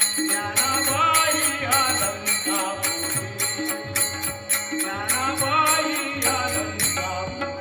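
Marathi devotional abhang sung in a kirtan style: a solo voice holds and ornaments long melodic lines over a steady rhythmic accompaniment of crisp strokes and a low beat.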